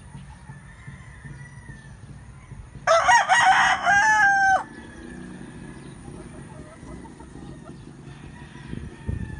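A rooster crowing once, about three seconds in: a single crow of under two seconds that ends on a held note and cuts off sharply.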